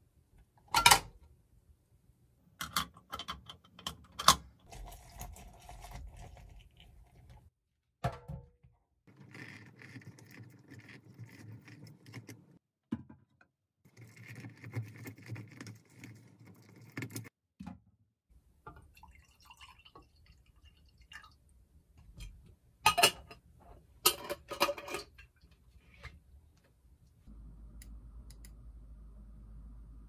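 Lemon halves being twisted and squeezed by hand on a plastic citrus juicer: squishing and juice dripping, broken by several sharp plastic knocks and clatters. A steady low hum sets in near the end.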